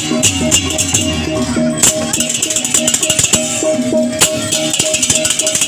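Balinese gamelan music for a barong dance: fast jangling cymbals and sharp drum strokes over a steadily repeated metallic note.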